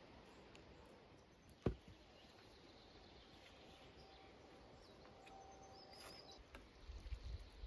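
Faint steady rain with a few soft bird chirps. A single sharp tap about two seconds in is the loudest sound, and a low rumble comes near the end.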